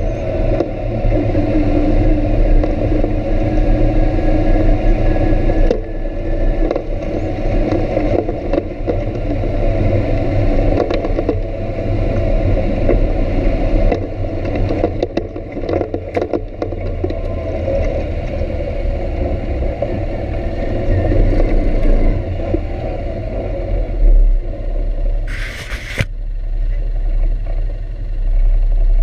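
ATV engine running steadily while riding a bumpy dirt track, with clicks and rattles from the machine jolting over the ground. A short burst of hiss comes near the end.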